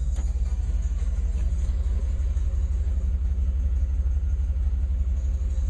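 1992 Pontiac Trans Am's V8 idling, a steady low rumble with even pulses.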